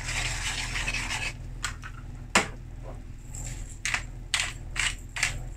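Spice grinder grinding nutmeg: a scratchy rasping for about a second, then a run of separate sharp clicks, the loudest about two and a half seconds in.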